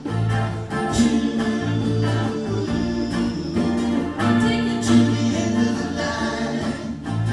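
A rock band playing live: sung vocals with harmonies over electric and acoustic guitars, bass and percussion.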